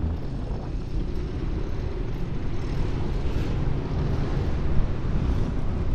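Steady rumble of a vehicle moving along a road: engine and road noise, strongest low down, with no sudden events.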